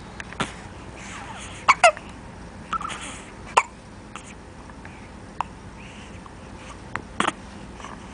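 Newborn baby hiccuping: short, sharp hiccups at irregular spacing, about one a second, a couple of them in quick pairs.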